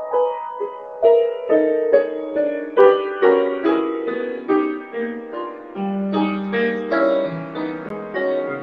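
Solo piano improvisation: a busy run of notes in the middle register, with low bass notes entering about six seconds in.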